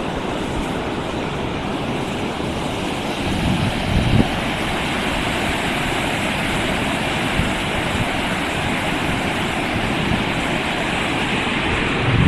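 Outdoor wind buffeting the microphone, with low rumbling gusts about three and a half seconds in, over a steady rushing noise.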